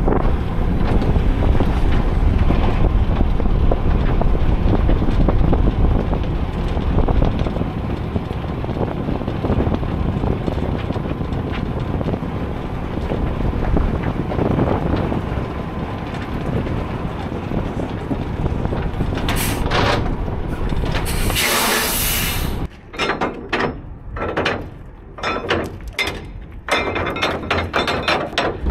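Semi-truck running with a steady rumble, then two sharp hisses of air near the end, the second longer, like air brakes being set. After them the rumble stops abruptly and a run of knocks and clicks follows.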